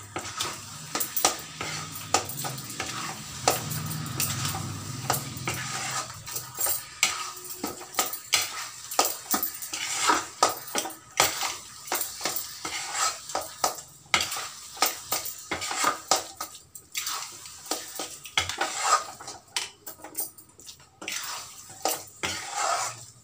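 Metal spatula scraping and clinking against a metal kadai in repeated, irregular strokes as khoya is stirred in sugar syrup for peda.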